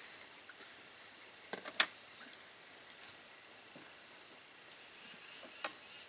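Woodland ambience: a steady high insect drone with a few short bird chirps. A few light clicks come from handling a metal can.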